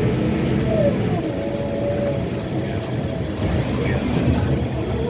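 Scania K320 coach's diesel engine running under way, a steady low rumble mixed with road noise.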